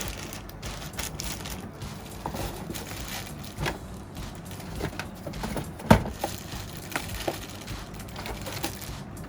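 Packaging being handled and opened: scattered crackles, clicks and small knocks, the loudest a sharp knock about six seconds in.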